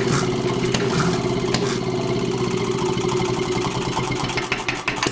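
Old small gasoline engine running steadily, its separate firing strokes becoming distinct and the sound starting to fade near the end as it slows down.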